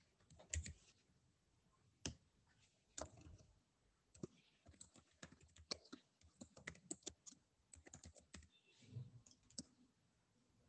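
Faint keystrokes on a computer keyboard: a few separate clicks in the first three seconds, then a quick run of typing from about four seconds in until near the end.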